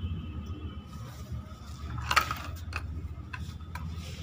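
Faint clinks and jingles of metal jewellery, bangles and a stone-set hand chain, knocking together as the hand moves. The loudest jingle comes about two seconds in, followed by a few light clicks, over a low steady rumble.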